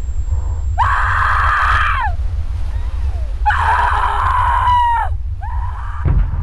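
A young woman screaming in distress: two long screams, each dropping in pitch as it ends, then a shorter third one, over a steady low rumble. A sudden low thump comes near the end.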